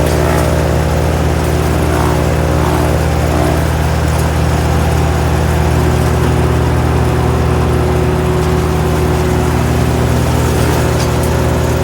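GreenMech Arborist 150 wood chipper's engine running steadily at a constant speed.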